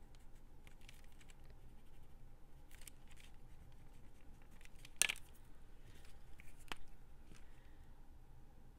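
Craft supplies being handled on a worktable: faint taps and rustles, with one sharp click about five seconds in and a smaller one near seven seconds.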